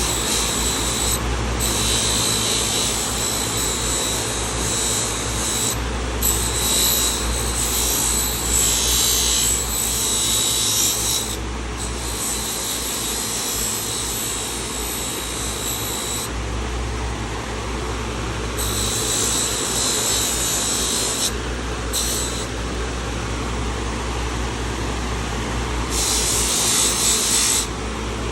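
Dremel rotary tool running steadily, with an accessory scraping rust and gunk off a rusty carbon-steel pocket knife blade. The high-pitched scraping comes and goes in repeated passes, with short breaks where only the motor hum is left.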